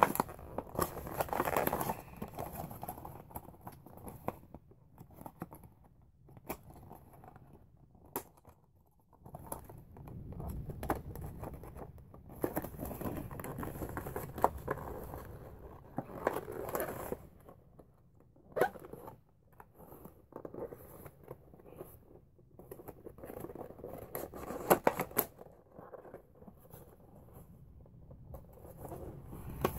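Cardboard packaging being handled and opened: irregular rustling, scraping and tearing, with a few sharp knocks along the way.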